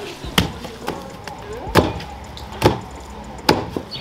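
Long wooden pestles pounding fufu dough in a mortar: four dull, heavy thuds, about one a second.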